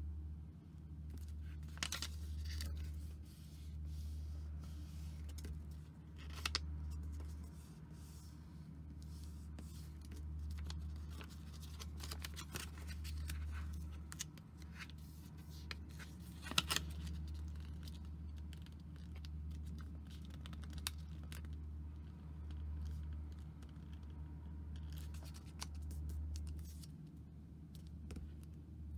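Origami paper being folded and creased by hand: soft rustling and crinkling with scattered crackles and a few sharper snaps as the folds are pressed. Under it runs a steady low hum that swells and fades every couple of seconds.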